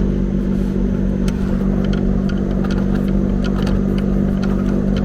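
A steady motor hum with a low rumble, and scattered light clicks and knocks of a part being handled and fitted.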